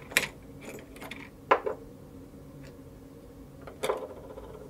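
Light metallic clicks and clinks as the cutting disc and quick-release nut are taken off an angle grinder's spindle by hand, with two louder clinks about a second and a half in and near the end.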